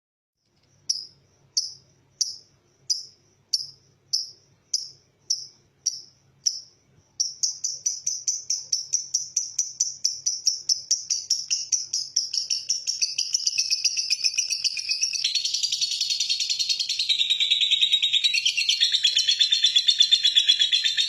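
Lovebird singing its long chattering 'ngekek' song: it opens with single chirps about every two-thirds of a second, then breaks into a fast, unbroken chatter about seven seconds in, which grows louder and lower-pitched toward the end.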